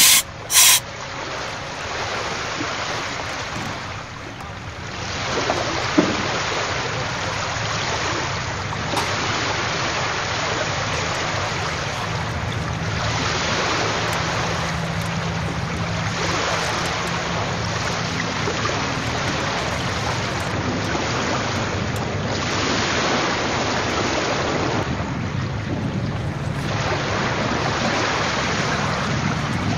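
Steady wind rushing over the microphone, with water lapping beneath it and a faint low hum. Two short loud bursts right at the start.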